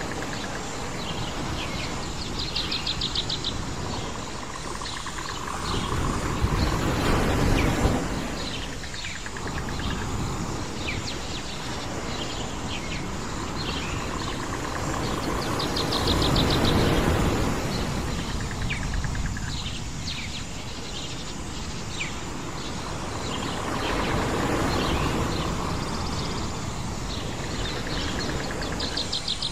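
Island nature ambience: waves washing in, rising and falling in slow swells every eight or nine seconds, with birds chirping throughout and a short buzzy trill recurring about every thirteen seconds.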